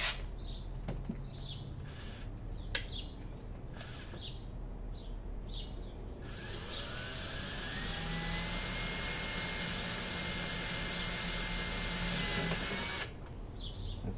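Handheld power drill spinning up about six seconds in, its pitch rising and then holding steady as it bores a small pilot hole, then stopping about a second before the end. Birds chirp before the drill starts.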